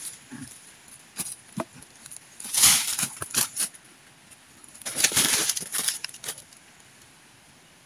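Footsteps and rustling in dry leaf litter, in two bunches of short crackling crunches, as a person moves about among felled logs.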